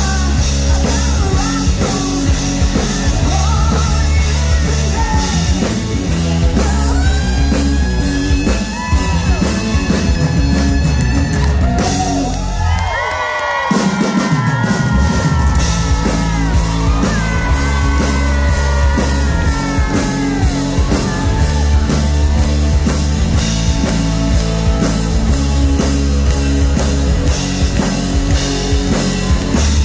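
Loud rock music with drum kit, bass and a singing voice. The bass and drums drop out for a moment about halfway through, then come back in.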